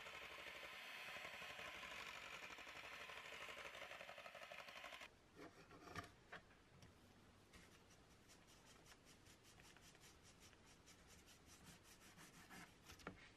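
Electric hand mixer whirring as its beaters whip cream in a stainless steel bowl, cutting off about five seconds in. Then a knife trims and scores the edge of a sponge cake sheet on parchment, making a quick, even run of faint ticks.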